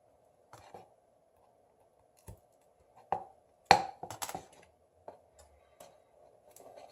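Scattered small, sharp clicks and taps of tools and parts being handled while a Samsung Galaxy S6 Edge Plus is taken apart, with a louder cluster of clicks about four seconds in, over a faint steady hum.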